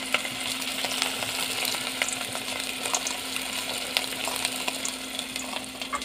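A masa gordita deep-frying in hot oil in a pot: a steady sizzle with frequent small crackles and pops.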